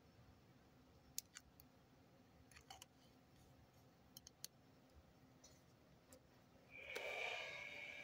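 Faint, scattered light clicks of a handmade ebonite fountain pen's barrel and cap being handled. About seven seconds in, a louder steady hiss with a high held tone begins.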